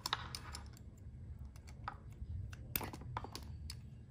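Scattered light plastic clicks and taps from hands handling a GoPro Hero10 Black action camera and unplugging its USB-C charging cable, about a dozen uneven ticks.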